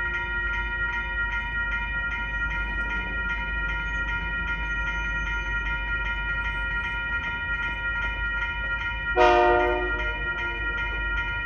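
Railroad grade-crossing bell ringing rapidly and steadily over a low rumble. About nine seconds in, the approaching locomotive's air horn sounds one short, loud blast.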